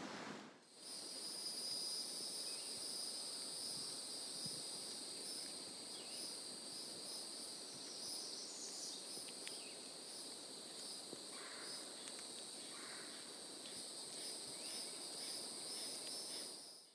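Steady high-pitched chorus of insects, crickets or katydids, trilling on two pitches at once, over faint outdoor background.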